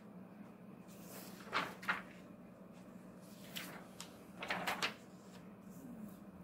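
A sheet being lifted off and a new one laid and slid into place on an overhead projector: a few short rustles and taps in two clusters, over a steady low hum.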